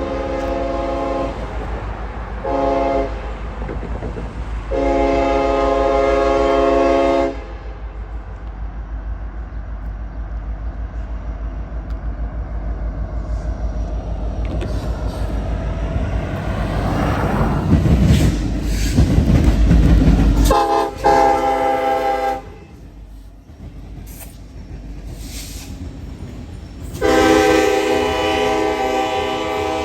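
Freight train's lead diesel locomotive, CN 8001, sounding its multi-chime air horn: a long blast, a short one, then another long one, over a heavy rumble from the locomotives' engines. About two-thirds of the way through, the engine rumble falls away and the horn sounds twice more, the second a long blast near the end.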